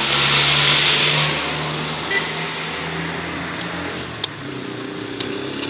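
Passing car on the street: engine hum and road noise swell at the start and fade over the next few seconds. A single sharp crack comes about four seconds in.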